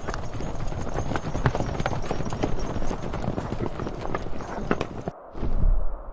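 Animal hooves clattering: many rapid, irregular knocks, as of a herd on the move. They cut off about five seconds in, followed by a brief, loud low rumble.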